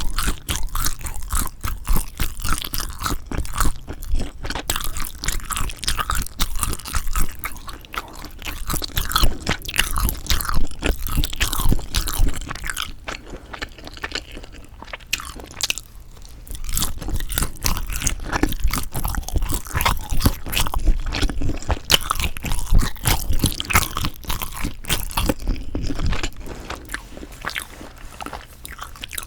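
Close-miked chewing of sundae, Korean blood sausage: a steady run of wet, sticky mouth sounds and soft crunches with no talking, easing off briefly about halfway through.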